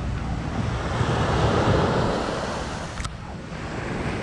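Surf washing in, swelling and easing, with wind buffeting the microphone; a brief sharp click about three seconds in.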